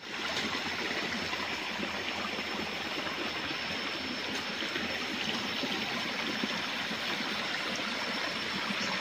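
Forest stream running over rocks: a steady rush of water, with a thin steady high tone above it.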